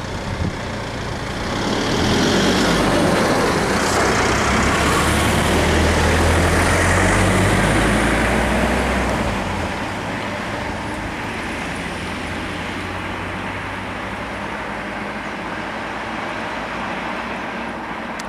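Heavy diesel vehicle's engine and tyres passing close by, swelling to a loud rumble about two seconds in and easing off after about nine seconds, leaving a lower, steady engine running.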